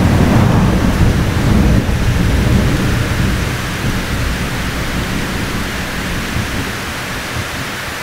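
Thunder rumbling over steady rain. The rumble is strongest in the first few seconds and slowly dies away, leaving the rain hiss.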